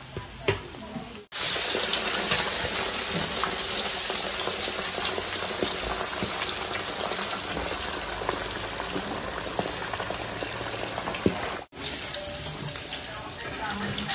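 Fish pieces deep-frying in a wok of hot oil: a dense, steady sizzle full of small crackles. A few clicks come before it starts about a second in, and it breaks off for a moment near the end.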